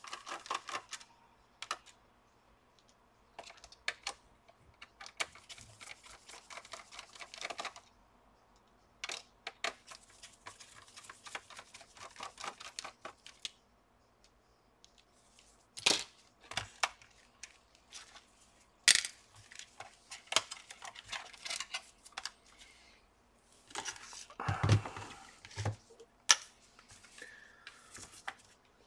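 Intermittent clicks, taps and rattles of a screwdriver, small screws and plastic parts while the display of an HP Pavilion dv6000 laptop is unscrewed and lifted off the base, with a few sharper knocks in the second half.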